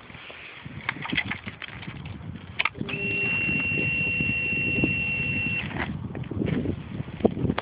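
A steady, high-pitched electronic beep that starts about three seconds in and lasts close to three seconds, over low rustling and knocking handling noises.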